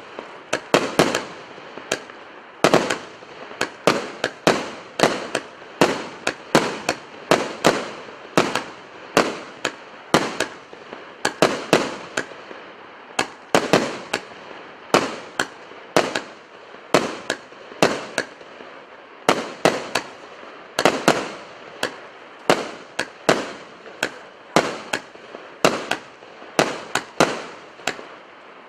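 A 49-shot, 1.25-inch (28 mm) firework cake firing: a continuous series of sharp bangs, about one or two a second, as each tube launches its shell and the shell bursts overhead. Each bang trails off in a short echo.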